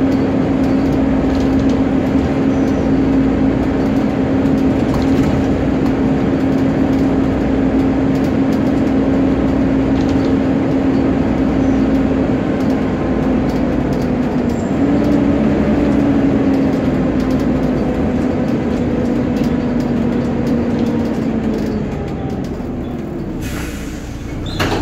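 Volvo B7TL double-decker bus's engine cooling fan whining steadily, a hoover-like drone over the engine and road rumble, heard inside the bus. The whine lifts slightly in pitch about halfway, then drops and dies away near the end, followed by a brief hiss.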